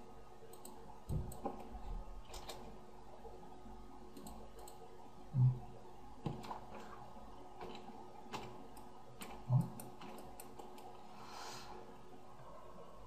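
Scattered light clicks of a computer keyboard and mouse, with two short low thumps about five and nine and a half seconds in.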